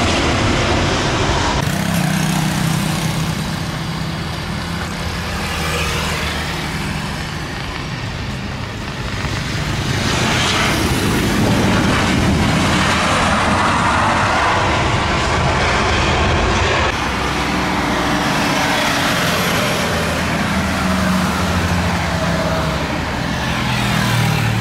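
Jet airliner engines on landing and rollout: a loud, steady rush of jet noise over a low hum, changing abruptly about two seconds in and again about seventeen seconds in.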